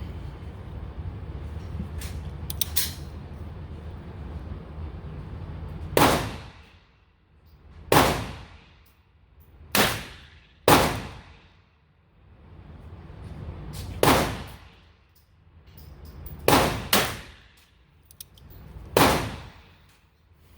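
.22 Long Rifle gunshots, eight in all, fired at irregular spacing about one to four seconds apart, including two quick pairs. Each shot has a short echoing tail from the indoor range. A few faint clicks come about two seconds in, before the first shot.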